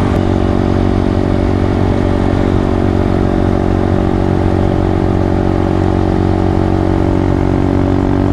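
Honda Grom's 125cc single-cylinder engine running at a steady, even pitch while the motorcycle cruises, picked up by a helmet-mounted mic along with wind and road noise.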